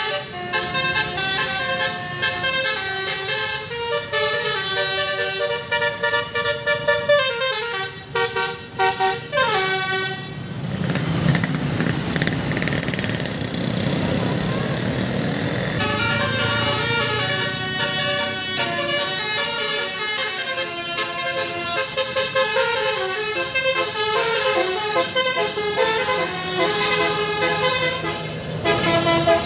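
Indonesian bus 'basuri' telolet horn playing a tune of stepping notes. In the middle the tune gives way for about six seconds to a noisy rush, then it starts again.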